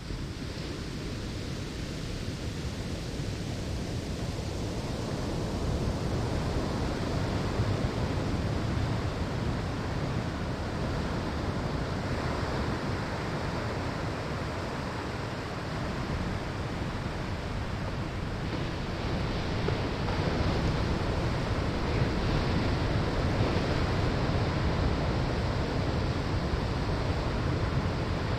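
Ocean waves breaking on a sandy shore: a continuous wash of surf that swells and eases, building up about a fifth of the way in and again past the middle.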